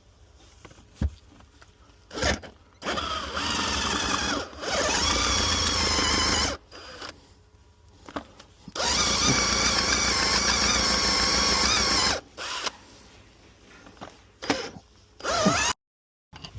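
Power drill running in several bursts of one to three seconds, a steady motor whine within each, as the bit bores out the broken remains of a spark plug in the spark plug hole of a 5-litre MerCruiser V8.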